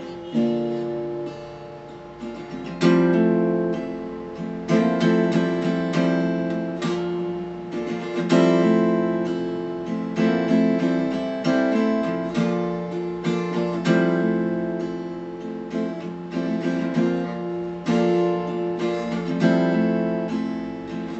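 Acoustic guitar strumming chords in an instrumental passage of a song, with no singing; a fresh strum every second or two, each ringing and fading.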